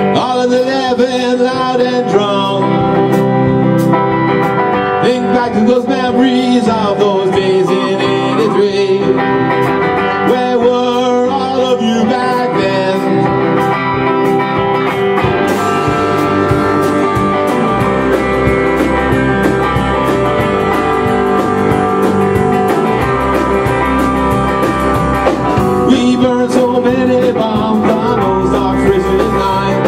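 Live rock band playing: electric guitars and a drum kit, with lead vocals. About halfway through, the playing gets fuller, with steady cymbal wash and a heavier low end.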